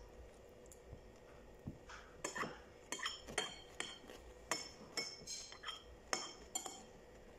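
Metal spoon clinking and scraping against a ceramic bowl while scooping rice: a quick, irregular run of about a dozen sharp clinks starting about two seconds in.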